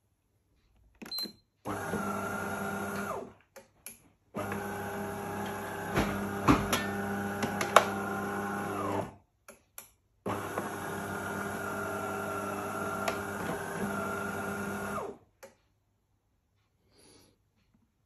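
De'Longhi bean-to-cup coffee machine running its start-up cycle while heating up: its internal motor and pump run with a steady mechanical hum in three goes, a short one and then two of about five seconds each, with a few sharp clicks during the middle run.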